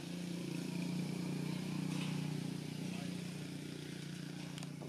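A steady low engine hum that swells slightly about a second in.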